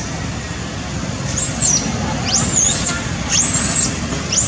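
Infant monkey giving repeated high-pitched squealing calls, each rising and falling, about one a second.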